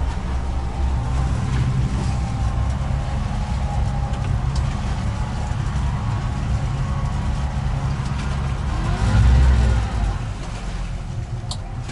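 Motorboat engine running under load with a steady low drone, surging louder about nine seconds in as the revs rise, while the boat is worked off the sandy bank it was stuck on.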